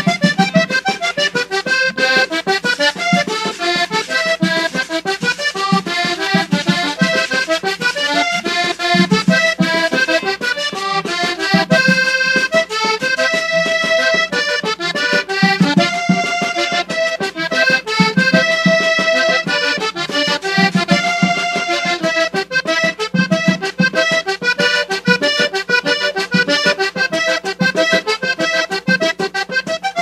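Vallenato music led by a diatonic accordion playing quick runs of held notes over a regular low pulse.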